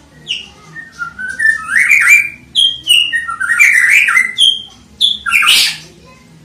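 White-rumped shama (murai batu) singing: a run of quick whistled notes stepping upward and slurred phrases mostly between about 1.5 and 4 kHz, ending near the end with a loud, harsh, noisy note.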